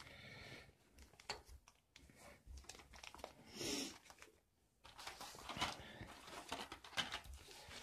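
Clear plastic coin flips and bags crinkling faintly in gloved hands, in short irregular bursts with small clicks.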